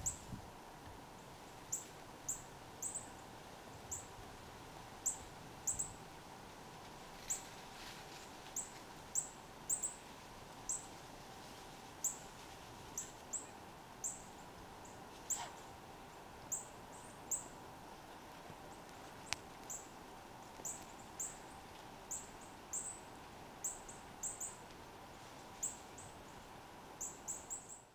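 A small bird giving short, very high chip notes that slide down in pitch, repeated one or two a second and often in quick pairs or threes, over a faint steady hum.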